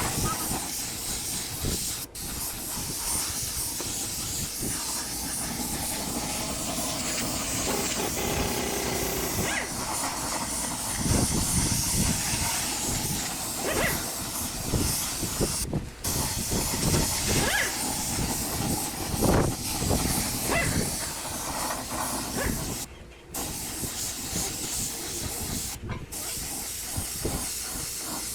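Compressed-air paint spray gun hissing steadily, breaking off briefly a few times, with a few low bumps in the middle.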